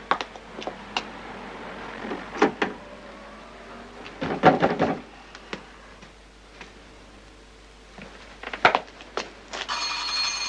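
Scattered knocks, clicks and clatter of objects being handled, with a burst of clatter about four and a half seconds in. Near the end a ringing of several steady high tones starts.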